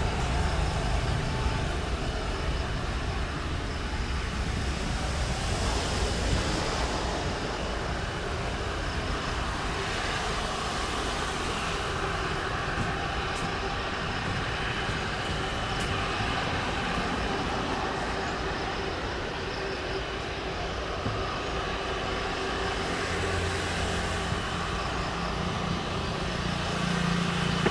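Jet engines of an Airbus A321neo at takeoff power, a steady even noise as the airliner accelerates down the runway and lifts off.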